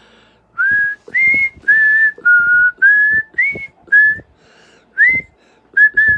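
A man whistling a tune: about ten short clear notes, roughly two a second, some sliding up into the note, with a brief pause partway through.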